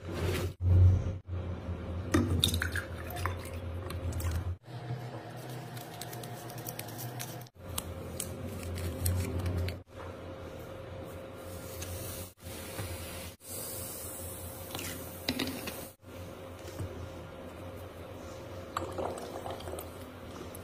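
Handling sounds of a drinking glass and water in short edited clips: glass knocking on the table, water going into the glass, and a rubber bulb syringe squelching as it is squeezed and draws water. The clips break off suddenly at each cut.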